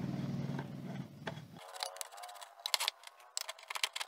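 Screwdriver working the mounting screw of a power transistor on an aluminium heatsink: small metallic clicks and scrapes, as the failed NPN output transistors of an amplifier board are unscrewed for replacement. A low steady hum underneath cuts off abruptly about a second and a half in.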